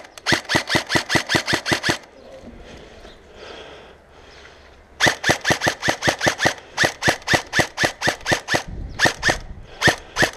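Airsoft gun firing rapid, evenly spaced shots, about six or seven a second, in two long strings with a pause of about three seconds between them. A few single shots follow near the end.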